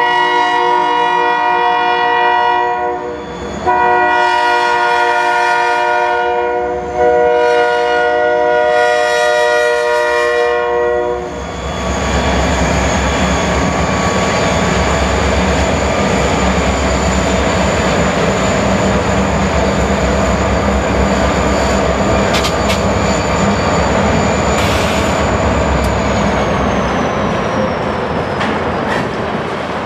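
Buffalo & Pittsburgh freight train's EMD diesel locomotives passing slowly. The lead unit's air horn sounds a chord of several notes in long blasts for about the first eleven seconds. Then comes the deep rumble of the diesel engines and the rolling of the tank cars, with a high steady whine that slides down in pitch near the end.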